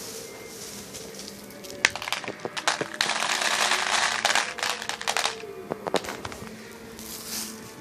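Sharp cracks go off irregularly, and from about three seconds in there are some two seconds of dense, rapid crackling. The person recording could not tell whether they were gunshots or fireworks.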